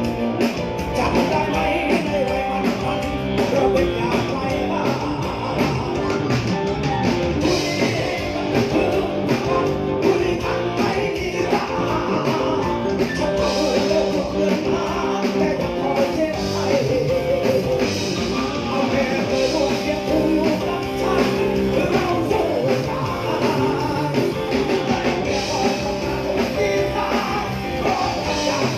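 A live band playing a rock-style song with a singer, electric guitar among the instruments, loud and continuous.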